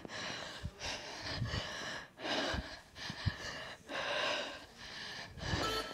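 A woman breathing hard during kettlebell swings, a string of forceful breaths broken by short pauses.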